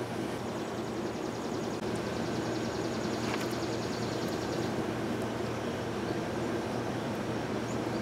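Honeybee colony humming steadily around an open top-bar hive as a comb of bees is lifted out. A fast, high-pitched pulsing trill sounds behind it for about four seconds.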